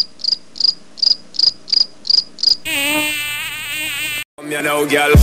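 Intro sound effect of cricket chirping: high, evenly spaced chirps, about three a second. About two and a half seconds in it gives way to a warbling tone with a wavering pitch. After a brief dropout, a rising tone leads into electronic music near the end.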